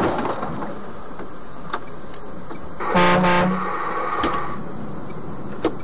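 A vehicle horn sounds once, briefly, about three seconds in, over the steady road and engine noise heard from inside a truck's cab.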